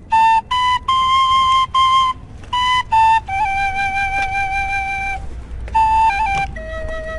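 Flute playing a melody: a quick run of short, separate notes, then longer held notes that step down in pitch toward the end.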